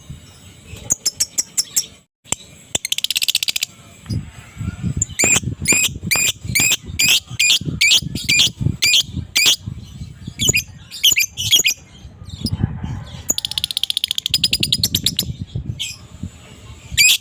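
Lovebird calling: a string of sharp, shrill chirps several a second, broken by rapid chattering trills (the 'ngekek') about three seconds in and again from about thirteen to fifteen seconds in. A low muffled noise runs under the calls through the middle.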